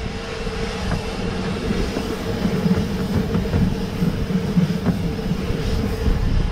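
Narrow gauge 2-6-2 steam tank engine running, heard from the footplate: a steady, dense rumble of the locomotive and track, with scattered clicks and a steady hum.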